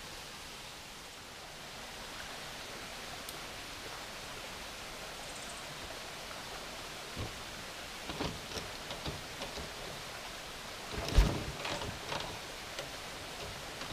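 Steady hiss of outdoor background noise, with scattered light knocks and clicks in the second half and one louder, deeper thump about eleven seconds in.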